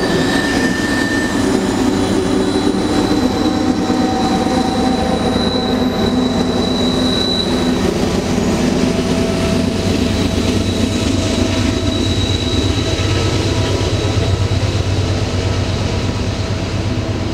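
Canadian Pacific freight train rolling by: a steady rumble of steel wheels on rail, with thin high wheel squeals coming and going. The low rumble grows in the second half.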